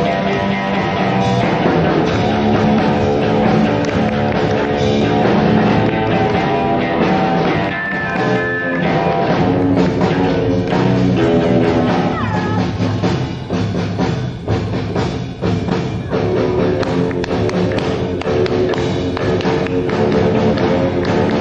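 A rock and roll band playing live, with electric guitars, bass and a drum kit.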